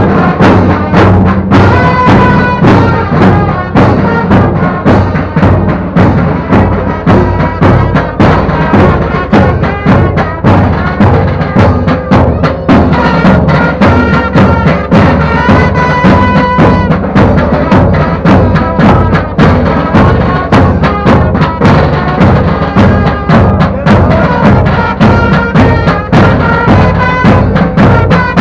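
Pipe band playing a march: bagpipes sounding a tune over steady drones, with bass and side drums keeping a steady beat.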